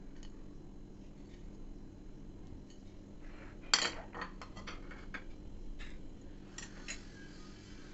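Kitchen utensils clinking against dishes: one sharp clatter about halfway through, then a quick run of lighter clicks and two more clicks near the end, over a low steady hum.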